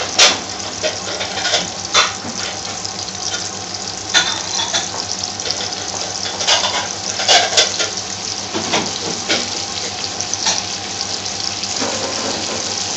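Chopped garlic frying in hot vegetable oil in a frying pan: a steady sizzle with scattered sharper pops. The oil is coming up to a boil around the garlic in the early stage of frying.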